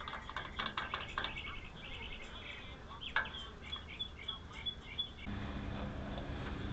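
Small birds chirping repeatedly in the background, with a few light clicks early on. A steady low hum starts about five seconds in.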